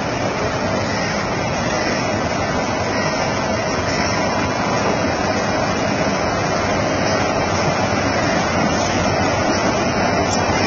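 BHEL-built Indian Railways electric locomotive's cooling blowers running: a steady, loud rushing noise with a faint hum in it, growing gradually a little louder.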